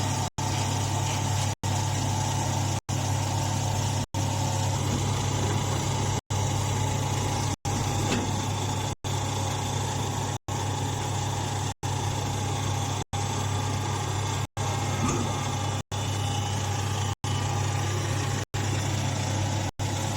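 Hydraulic hay baler's power unit running steadily with a low hum. The sound is cut by brief silent gaps roughly every second and a half.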